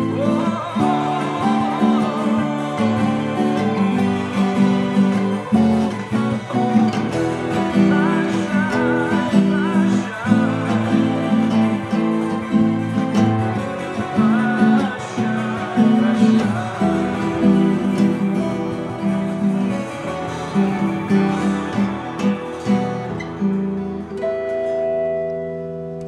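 Acoustic guitar playing chords in a steady rhythm, ending on a final chord left to ring and fade away near the end.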